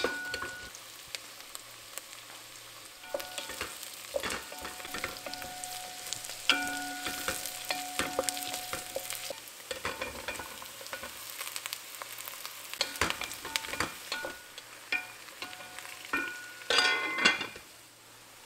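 Diced onions frying in oil in a pot, stirred and scraped with a wooden spoon, with repeated knocks and scrapes of the spoon against the pot. About halfway through, potato chunks are tipped in, and near the end there is a louder clatter.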